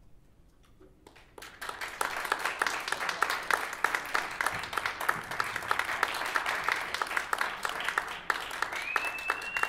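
Audience applauding: a second or so of near quiet, then dense clapping from many hands builds up and holds. Near the end a high whistle glides up and is held.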